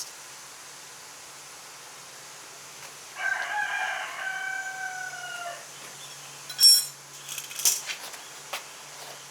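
A rooster crowing once, a call of about two seconds that falls slightly in pitch. A few seconds later comes a sharp clink, the loudest sound, followed by a couple of lighter clicks.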